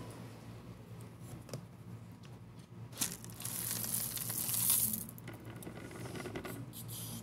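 Dry egg noodles poured out of a container onto carpet: a sharp click, then a rattling, rustling pour of about a second and a half, with a few light clicks of settling noodles after it.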